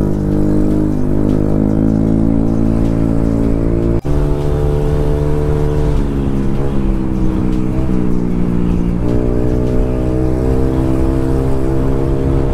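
Honda scooter's single-cylinder engine with an aftermarket exhaust, running at steady cruising throttle on the move, its exhaust note droning. It breaks off for an instant about four seconds in, then carries on.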